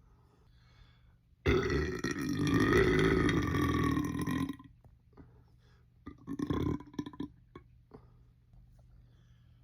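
A long, loud belch lasting about three seconds, its pitch wavering. A couple of seconds later comes a brief, quieter sound, then a few small clicks.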